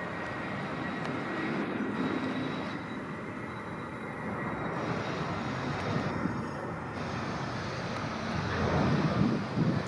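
Jet airliner engines running: a steady rush with a faint high whine, growing louder near the end.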